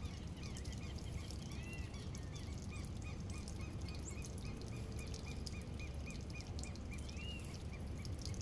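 A bird calling a long run of short, repeated chirping notes, about three a second, over a steady low rumble.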